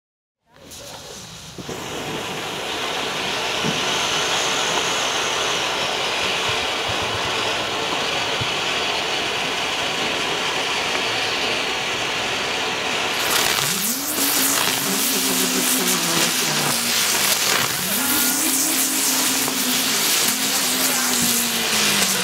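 Firework fountain burning: a loud, steady hiss of spraying sparks that starts about half a second in. About thirteen seconds in it turns into a denser, crackling spray.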